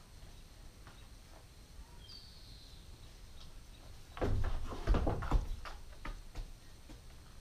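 A burst of knocks and clatter, about a second and a half long and starting about four seconds in, from a Nubian goat kid moving at a plastic feed tub. Earlier, a bird gives one short falling chirp.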